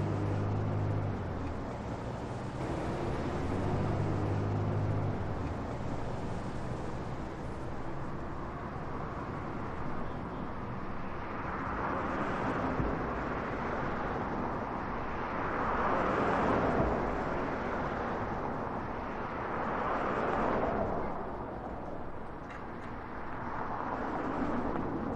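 Busy city street traffic. A low engine hum sits under the noise for the first few seconds, then vehicles pass in swells of noise every few seconds.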